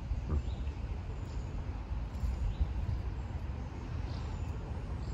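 Low, uneven rumble of wind buffeting the microphone, with a few faint, short bird chirps above it.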